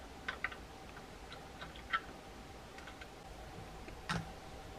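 Scattered light clicks and taps of hard plastic as the parts of a 1:24 scale model truck cab are handled and fitted, with a louder knock about four seconds in, over a faint steady hum.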